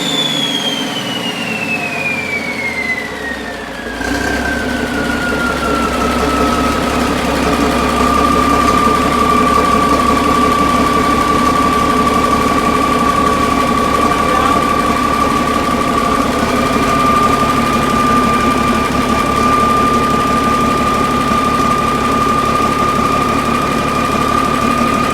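Cummins 500 hp diesel engine running down from a rev: a high-pitched whine falls steadily in pitch over the first several seconds, then settles into a steady whine over the engine's low, even idle.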